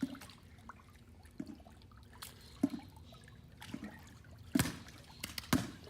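Pool water trickling and lapping, broken by a few brief splashing sounds, the loudest about four and a half seconds in.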